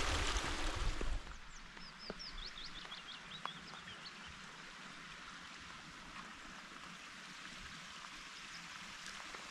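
Running stream water for about the first second, then it drops away to a quiet background where a small songbird sings a quick run of about a dozen notes, falling in pitch.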